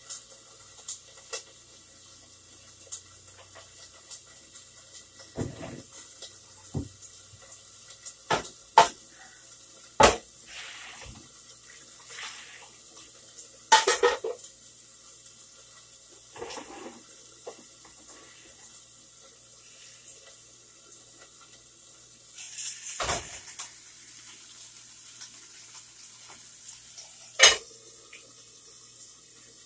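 Kitchen cookware being handled: pots, pans, lids and a bottle set down and moved about on an electric stove and counter, giving scattered knocks and clinks with a few louder clatters, over a faint low hum.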